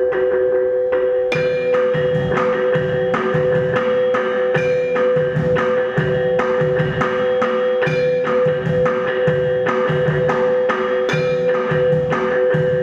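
Live percussion ensemble music: a steady beat of struck, mallet- and wood-block-like strokes over two sustained drone tones, growing fuller and brighter just over a second in.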